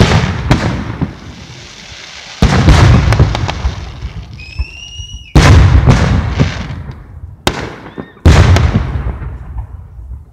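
Aerial fireworks shells bursting: several heavy booms a few seconds apart, each followed by a long rumble that dies away slowly, with a sharper crack between them. A brief high whistle sounds about halfway through.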